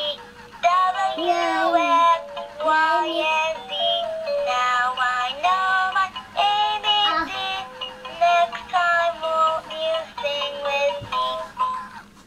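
Electronic singing voice from a plush alphabet elephant toy, a song in short held notes over a steady accompaniment tone through the toy's small speaker; it fades out just before the end.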